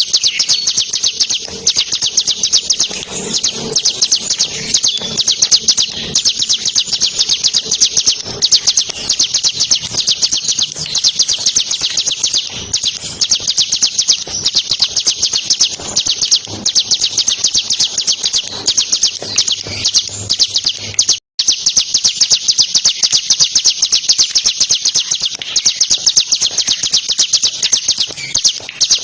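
Bar-winged prinia (ciblek kristal) singing a fast, unbroken trill of high, rapidly repeated notes, the continuous 'ngebren' song, cutting out for an instant about two-thirds of the way through.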